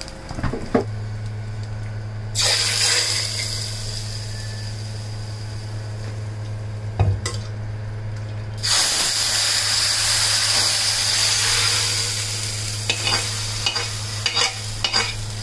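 Fenugreek seeds sizzling and spluttering in hot coconut oil in an iron kadai as a tempering for a curry, stirred with a metal spoon. The sizzle starts about two seconds in, breaks off for a moment, then comes back louder, with a few clinks of spoon on pan near the end. A steady low hum runs underneath.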